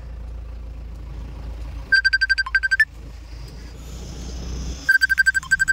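Rapid electronic beeping in identical bursts of about a second, each with a short dip and rise in pitch near its end, coming about every three seconds, over the steady low hum of an idling vehicle.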